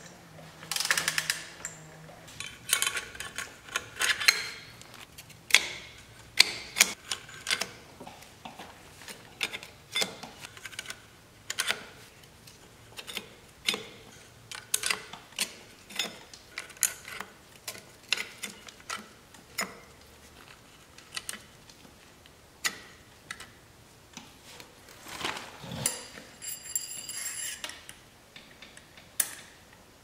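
Irregular clicks, knocks and clinks of metal hand tools and parts being handled, with a denser, ringing metallic clatter a few seconds before the end.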